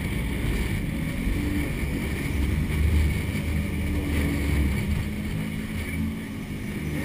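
Sportfishing boat's engines running with a low drone that swells and eases, over wind and rushing wake water.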